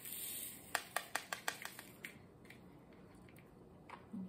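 Diamond painting drills and their small plastic bags and containers being handled: a short rustle, then a quick run of sharp little clicks about a second in, and a few scattered clicks after.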